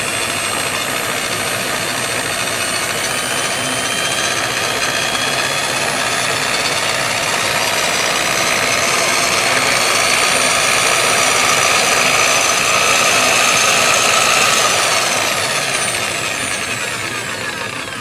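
Electric rotary car polisher motor running with a whine that slowly rises in pitch as its variable speed is turned up. Over the last few seconds the motor winds down, falling in pitch and fading, as the small power station overloads and cuts out.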